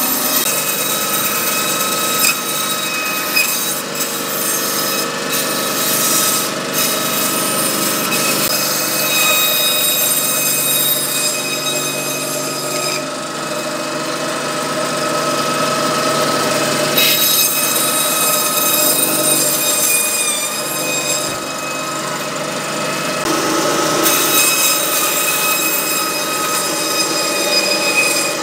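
Butcher's meat band saw running, its blade cutting through a rack of beef rib bones; a steady machine whine whose tone shifts several times as the cuts go on.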